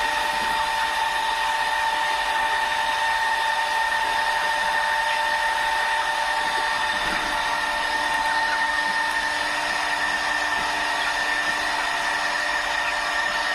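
Inside a broiler chicken house: the dense, continuous noise of a flock of four-week-old broilers under a steady high-pitched machine whine. A lower hum joins about halfway through.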